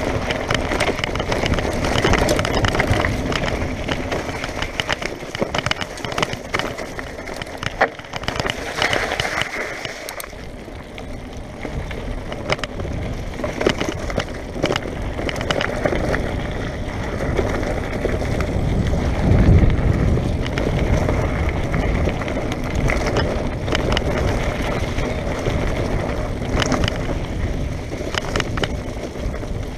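Mountain bike rolling fast downhill on a dirt trail, heard from the handlebars: tyre noise over stones and gravel with frequent rattles and knocks from the bike, and wind rumbling on the microphone. It is harsher and brighter over the rocky ground for the first ten seconds or so, then softer on the smoother earth path.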